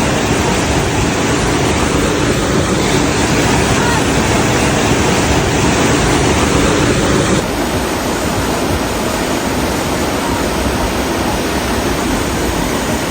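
Waterfall on a river rushing steadily. About seven seconds in, the sound changes abruptly to a slightly quieter rush of water.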